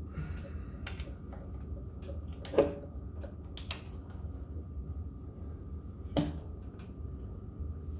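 Scattered clicks and knocks of an electric scooter's rear wheel and fork parts being handled, with two sharper knocks, the louder about two and a half seconds in and another about six seconds in, over a steady low hum.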